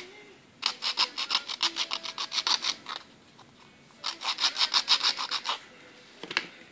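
A handmade acrylic ring rubbed back and forth on a black nail file to smooth its rough sides. It makes two runs of quick rasping strokes, about six a second, each run lasting one and a half to two seconds. A couple of short strokes follow near the end.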